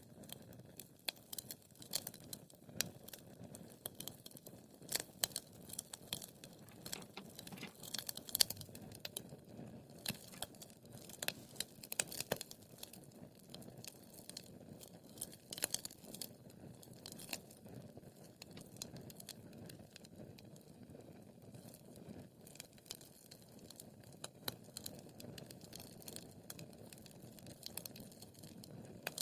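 Wood fire burning in a fireplace: a steady low rush of flames with frequent sharp crackles and pops, busiest in the first half.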